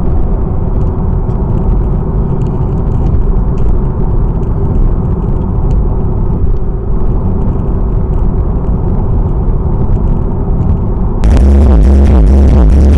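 Steady low rumble of a car's engine and tyres at motorway speed, heard from inside the cabin. About eleven seconds in, loud electronic music with a heavy bass cuts in abruptly.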